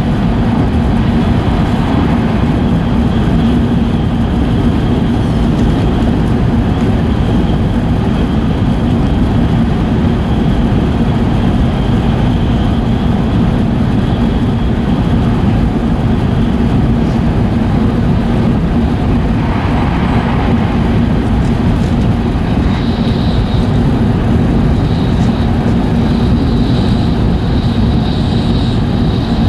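Running noise of an E5 series Shinkansen heard inside the passenger car: a steady, loud rumble of wheels, track and rushing air. About three-quarters of the way through, a thin high whine joins it.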